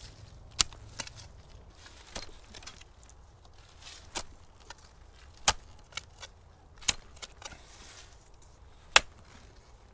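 Metal digging tool and spade chopping into soil: sharp, irregular strikes a second or more apart, the loudest near the end.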